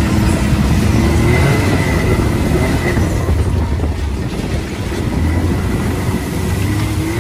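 Can-Am Maverick X3's turbocharged three-cylinder engine running as the UTV drives into a river, with water spraying and splashing against the body and windshield.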